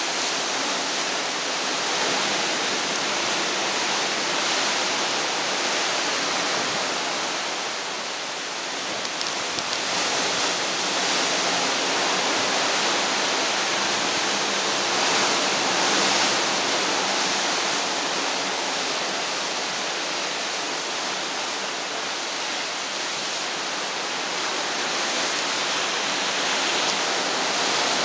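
Steady rushing hiss of wind and open sea heard from high on a moving cruise ship, the choppy Pacific and the ship's bow wave washing without break. A faint steady low hum runs underneath.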